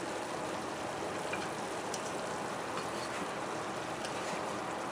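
Pot of pork menudo stew simmering on the stove at medium-high heat: a steady bubbling hiss.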